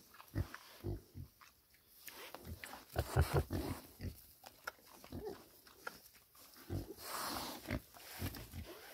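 Pigs grunting: short, low grunts coming irregularly, thickest around three seconds in.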